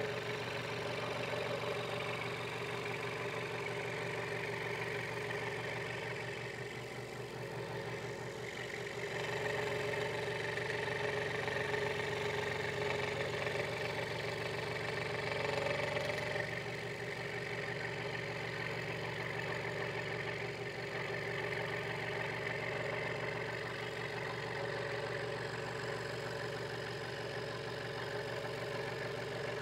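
Hegner Multicut 2S scroll saw running steadily, its reciprocating blade cutting a small piece of wood.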